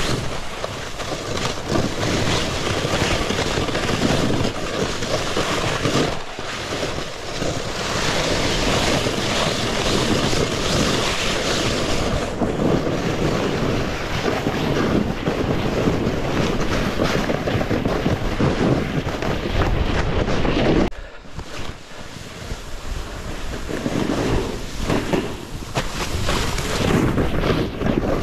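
Wind rushing over the microphone together with a snowboard scraping and chattering through chopped-up snow on a fast downhill run. The noise dips briefly about three-quarters of the way through, then picks up again.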